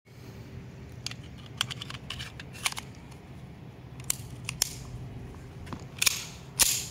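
Metallic clicks and clacks of a Chinese-made Gorilla 30 bore (7.62×25 mm Tokarev) TT-pattern pistol being handled. Near the end come two louder clacks as the slide is pulled back against a cartridge stuck in the chamber.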